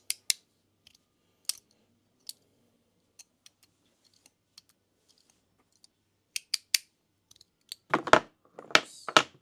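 Magnetic fidget slider being played with: the halves snap between positions in sharp, scattered clicks, with a quick run of three clicks partway through. Near the end come several louder knocks, as a piece falls.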